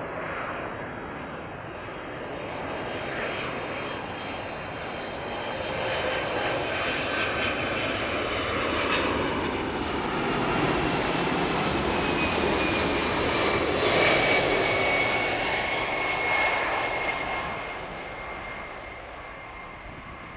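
Twin jet engines of a Boeing 767-300ER on final approach, passing close by at landing power. The noise swells to a peak a little past the middle and then fades, with a high whine that slides down in pitch as the airliner goes past.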